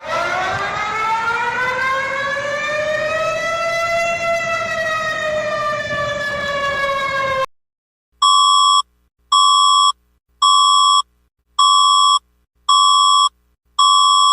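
Emergency alert siren: a single slow wail that rises in pitch, then falls, and cuts off after about seven and a half seconds. After a short gap, an alert tone gives six evenly spaced beeps, about one a second.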